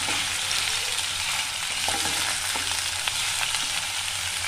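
Pieces of raw jackfruit sizzling steadily as they fry in hot oil in a non-stick kadhai, with a few soft knocks of a wooden spatula stirring them against the pan.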